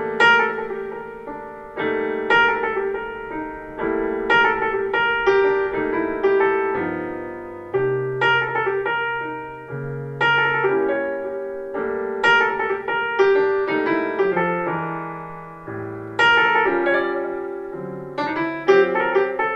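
Piano jazz music played back through a pair of Sharp CP-C411H bookshelf speakers and picked up by a microphone in the room. Struck piano notes and chords follow one another, each ringing out and decaying.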